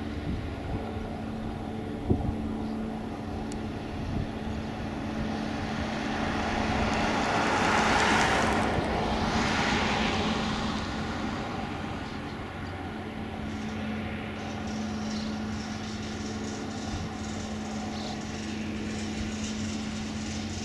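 Van's RV kit plane's piston engine droning steadily as the plane descends on approach to land. A broad rushing swell builds to a peak about halfway through and then fades.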